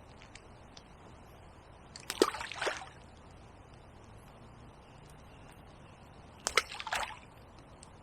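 Two short bursts of splashing and knocking, about four and a half seconds apart, over a faint steady rush of river water.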